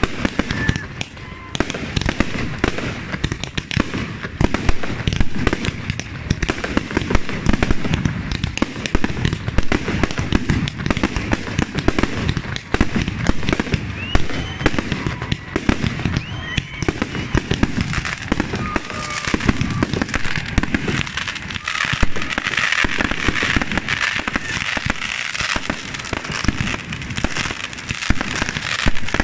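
Fireworks display going off as a dense, unbroken barrage of bangs, with crackling growing thicker in the last several seconds.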